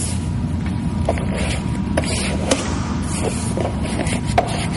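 Hands rubbing and pressing adhesive vinyl film down onto a plastic ATV fender, with a few small sharp ticks, about two of them standing out, over a steady low rumble of background noise.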